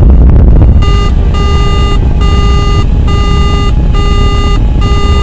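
Lunar module descent engine rumbling heavily, with a repeating electronic warning alarm beeping about one and a half times a second from about a second in. Together with the fuel readout at 02, the alarm signals the lander's fuel running out during descent.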